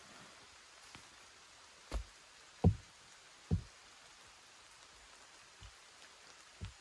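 Rocks knocking together as they are set in place by hand to build a stone fireplace: about six short, dull knocks, the loudest three close together between two and three and a half seconds in.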